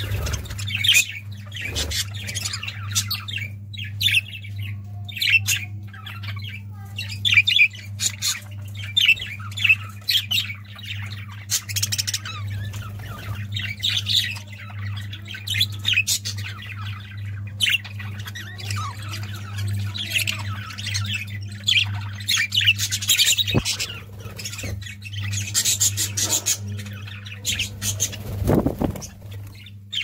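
A flock of budgerigars chattering and squawking, with many short, overlapping high calls and a steady low hum underneath.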